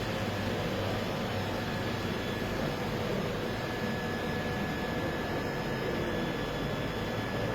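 Automatic beer keg washing machine running: a steady rushing noise over a low hum, with a faint high steady tone coming in about two seconds in.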